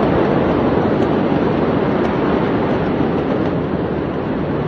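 A steady, loud rushing rumble with no separate bangs or cracks.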